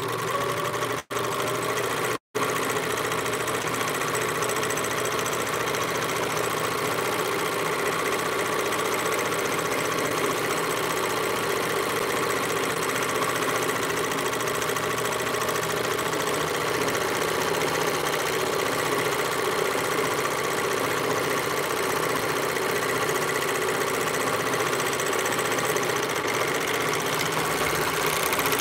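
Four-thread, two-needle serger (overlock machine) running steadily at speed, stitching a rolled hem along the fabric's edge.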